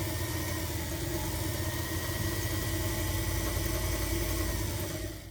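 Singer 328K sewing machine motor running fast and steady under a bakelite carbon-disc foot controller pressed nearly to full speed, then stopping about five seconds in.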